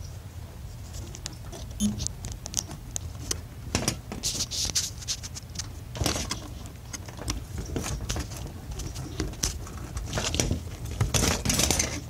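Hand-held quick-disconnect coupler tools worked onto a fuel pump module's quick-connect fuel-line fitting: irregular clicks, scrapes and rattles of plastic and metal, busiest about four seconds in and near the end.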